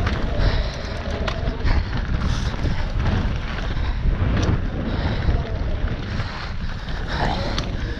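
Strong wind noise on the microphone of a downhill mountain bike ridden down a trail, with scattered sharp rattles and knocks from the bike.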